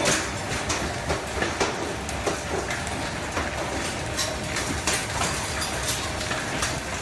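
Severe storm heard from inside a house: a steady roar with frequent, irregular sharp knocks and rattles striking the building.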